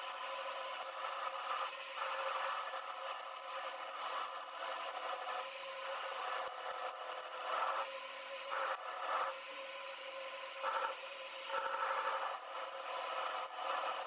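Metal lathe running with its tool parting off a steel workpiece: a steady drive hum under a scraping cutting noise that swells in short surges as the cut bites.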